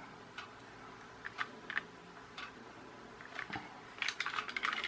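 Light clicks and taps of a plastic toy being handled on a table: a few scattered ticks, then a quick run of clicks and knocks about four seconds in.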